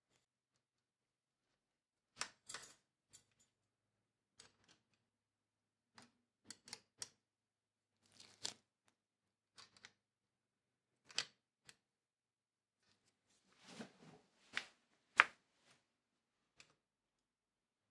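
Irregular sharp clicks and taps of a small wrench and steel shift cable against a vintage Shimano Dura-Ace rear derailleur as the cable is threaded through and clamped, about a dozen in all with the sharpest near the end.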